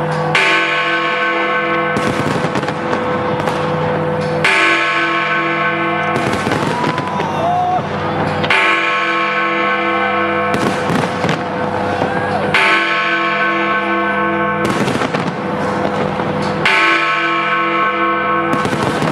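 Big Ben's great hour bell striking midnight, five deep strokes about four seconds apart, each left ringing, over the continuous crackle and bang of fireworks.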